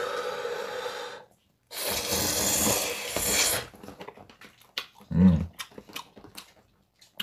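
Slurping hot galbitang broth and glass noodles: a first slurp in the opening second, then a longer, louder one from about two seconds in. About five seconds in there is a short low vocal sound, followed by a few small clicks.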